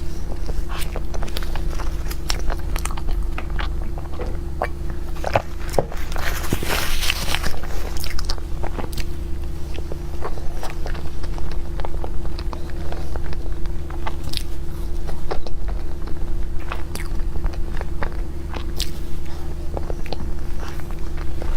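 Close-miked eating: bites and chewing of cake, with many small crisp clicks and a denser patch of crunching about six to eight seconds in.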